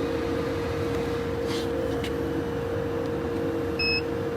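Steady electrical hum with a constant tone from the box-taping machine. Near the end comes one short electronic beep from its touch-screen control panel as a setting is pressed.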